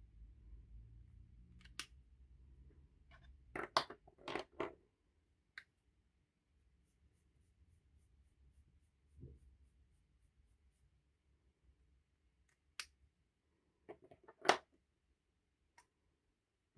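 Scattered sharp clicks and taps of art supplies, such as pens and ink markers, being handled and set down on a desk. The loudest is a tap about two seconds before the end, and a faint low hum runs through the first few seconds.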